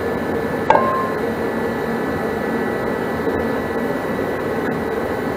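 Steady fan-like whir throughout, with one sharp metallic clink and a brief ring about a second in as a cast-iron rear brake drum is handled.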